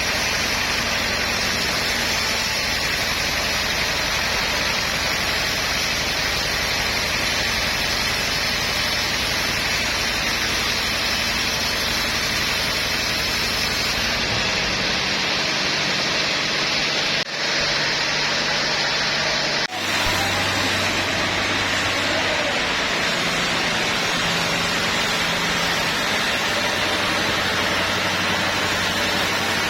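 Sawmill machinery running steadily: a loud even mechanical noise over a low engine hum, with two brief drops about seventeen and twenty seconds in.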